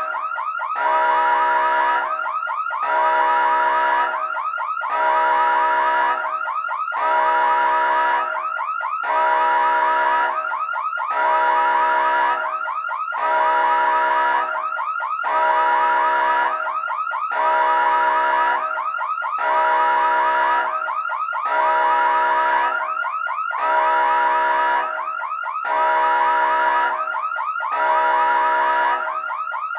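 Electronic emergency siren sounding in an even cycle that repeats about every two seconds, with quick warbling sweeps in each cycle.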